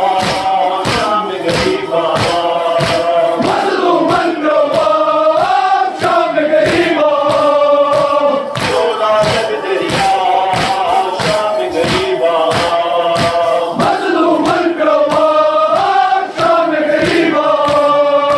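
A crowd of men chanting a Shia noha (Muharram lament) in unison to a melody. Sharp, regular beats about twice a second keep time, typical of mourners' chest-beating (matam).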